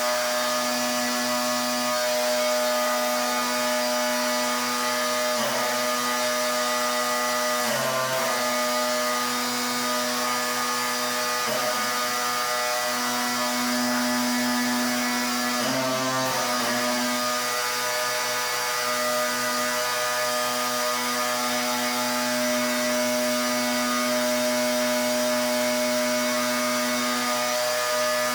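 Pressure washer running: a steady pitched machine hum over the hiss of the water jet. Twice the tone briefly wavers.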